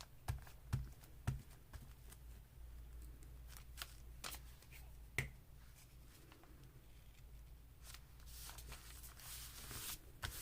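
Paper being handled on a craft table: a few light taps early on and around the middle, then a longer soft rustle of paper near the end.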